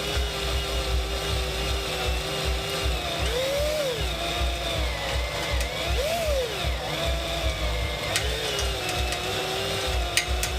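Drill boring through a metal crash bar, its motor running steadily under load with a high thin tone of the bit cutting. The motor pitch rises briefly twice, about three and six seconds in, and a few sharp clicks come near the end.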